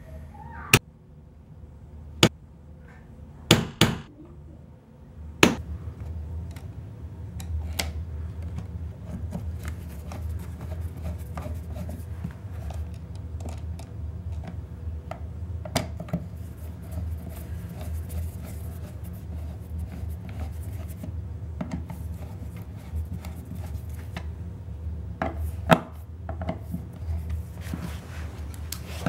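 A handful of hammer blows nailing bead board wainscoting in the first several seconds, then a steady low hum with small clicks and scrapes of tool work at a wall outlet, and a couple of sharp knocks near the end.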